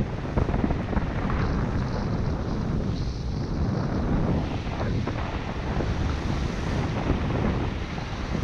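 Wind buffeting the microphone during a fast downhill run on cross-country skis, with the steady hiss and scrape of skis sliding in snow tracks.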